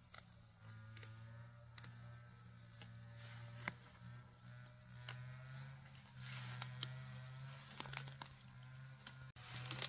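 Stems of wild greens snapped off by hand, with leaves rustling: a scatter of sharp snaps throughout, over a steady low hum.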